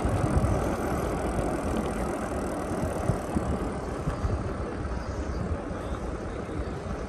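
Wind rushing over the microphone and tyre noise from a Super73 electric bike rolling over paving, a steady rumbling noise that eases slightly toward the end.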